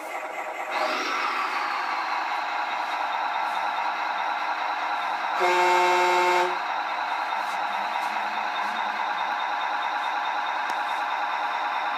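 Electronic truck sound module on a radio-controlled model truck, playing a diesel engine idling steadily through a small speaker, with one horn blast of about a second midway.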